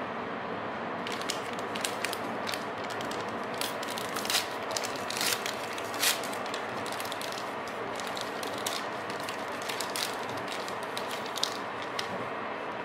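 Plastic film wrapper of a cream bun crinkling and crackling as it is torn open by hand: a rapid, irregular run of crackles starting about a second in, over the steady running noise of the train.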